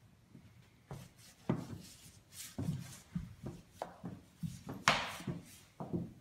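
A dog and a cat wrestling on a hardwood floor: irregular thumps, knocks and scrabbling of paws and bodies against the wood, with one longer, louder rush of noise about five seconds in.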